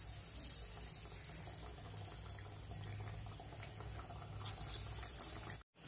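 Hot refined oil in a kadhai sizzling as lumps of chana dal pakora batter are dropped in by hand. The sizzle swells briefly about four and a half seconds in, then cuts out for a moment near the end.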